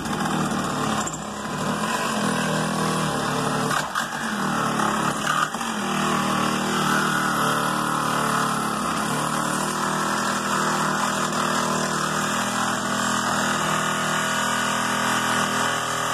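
Small engine running steadily under load, the power unit driving a hydraulic rescue cutter or spreader on a wrecked car's body.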